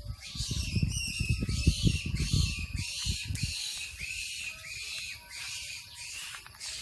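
A trapped rabbit squealing over and over, two or three high-pitched cries a second. For the first three seconds or so there is heavy scuffling in dirt and dry leaves as it is grabbed, which then stops.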